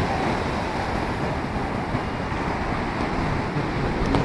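Wind buffeting a phone microphone over the steady wash of surf breaking on the beach.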